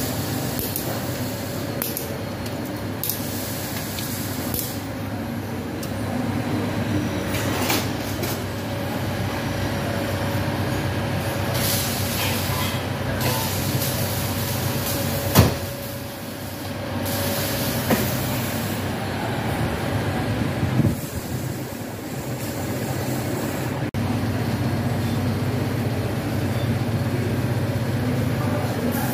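Steady low mechanical hum, with a sharp knock about fifteen seconds in and a few fainter knocks later.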